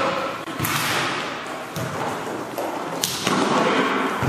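A volleyball being played during a rally: a few sharp slaps of hands and arms on the ball, echoing in the large gym hall.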